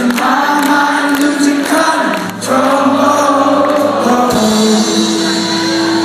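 Rock band playing live with a sung vocal line of held notes, heard loud from within the audience.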